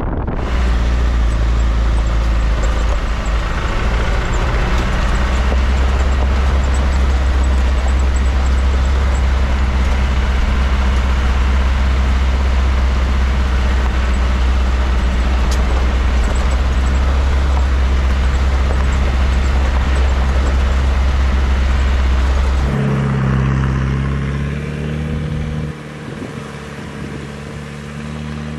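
Land Rover Discovery 1's 300Tdi four-cylinder turbo-diesel engine running steadily under way on a dirt trail, with a broad noise of the drive over it. About 23 seconds in the engine note changes and the sound quietens as the vehicle eases off.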